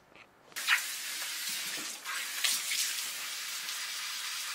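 Handheld shower sprayer at a salon shampoo basin running water through dye-coated hair to rinse out the colour: a steady hiss of spray on wet hair and the basin, starting suddenly about half a second in.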